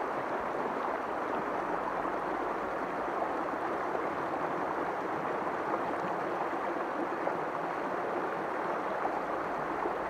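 Shallow river current rushing over a rocky riffle: an even, unbroken rush of water.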